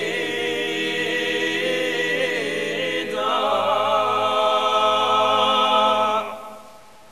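Male a cappella ensemble singing Corsican polyphony: held low voices under an ornamented upper line. About three seconds in they move to a louder sustained final chord, which they release about six seconds in, leaving the church's reverberation to die away.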